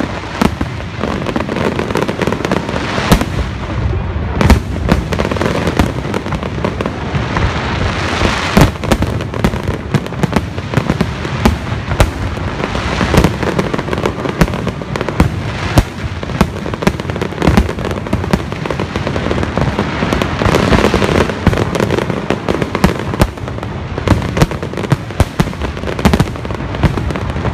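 Fireworks finale: a dense barrage of aerial shell bursts, the sharp booms coming several times a second and overlapping without a break.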